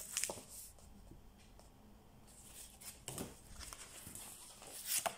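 Faint paper rustling and handling of a large picture book as its page is turned: a few short rustles, the loudest near the end.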